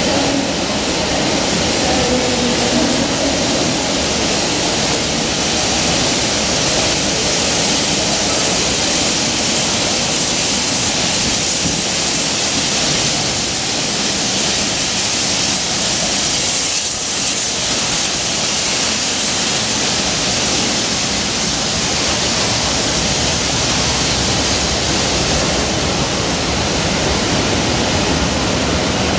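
A steam locomotive hauling a train of coaches past at close range: a steady loud rush of exhaust and wheels on the rails.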